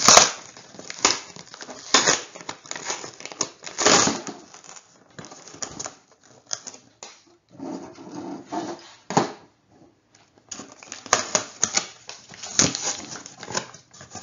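Packing tape being ripped off a cardboard box by hand, with the box's cardboard flaps scraping and rustling as they are pulled open. Irregular rips and rasps come in separate bursts; the loudest is right at the start.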